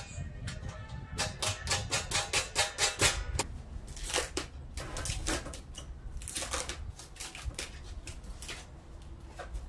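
A fast run of sharp clicks and clinks for about two seconds, then scattered single clinks: the thick stainless-steel panels, shelves and fasteners of a smokehouse cabinet being handled and fitted during assembly.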